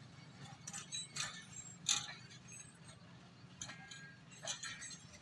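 Pakistan Railways passenger coaches rolling slowly past: a steady low rumble, with irregular metallic clicks and clinks from wheels and couplings.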